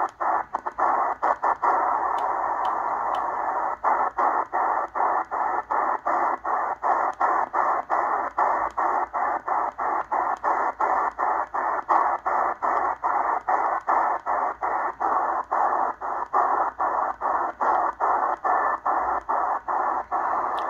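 Shortwave receiver in upper sideband being tuned quickly across the band: a narrow band of static hiss chopped by short mutes at each tuning step, about four a second. The mutes stop for a couple of seconds about two seconds in, then resume.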